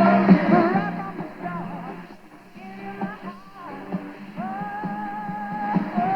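A song with a singing voice playing from the speaker of a mid-1930s Remington Model 250 tube radio tuned to a broadcast station.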